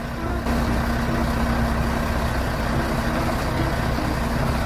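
Heavy truck's engine running steadily while its truck-mounted knuckle-boom crane lifts a concrete load: a low rumble with a steady hum over it, getting louder about half a second in.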